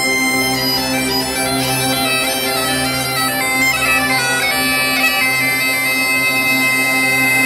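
Two Galician gaitas (bagpipes) playing a traditional xota melody over a steady drone.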